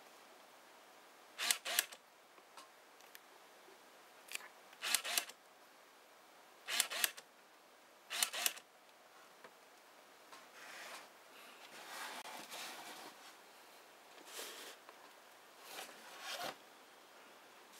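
A Nikon DSLR's screw-drive autofocus motor whirring in four short bursts as it drives a modified TC-16A teleconverter to focus. This is followed by softer rubbing and clicking as the camera is handled.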